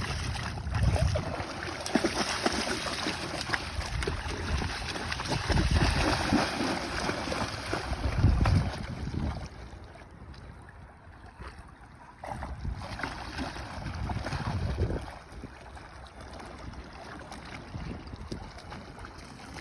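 Wind gusting on the microphone over splashing, sloshing water, with low rumbling buffets several times; it grows quieter about ten seconds in.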